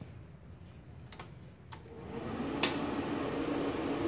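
MultiPro MMA 200 G-JB inverter welder being switched on: a few faint clicks, then about halfway through its cooling fan starts and runs with a steady hum, with a sharp click soon after it starts.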